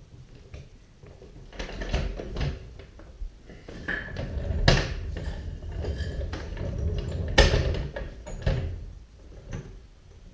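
Floor jack with a wood block being set under a motorcycle engine on a concrete floor: a series of sharp metal and wood knocks, with a low rattling rumble through the middle.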